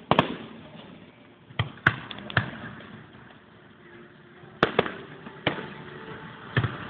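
Aerial fireworks shells bursting overhead: a series of about eight sharp bangs at irregular intervals, some in quick pairs, each trailing off briefly.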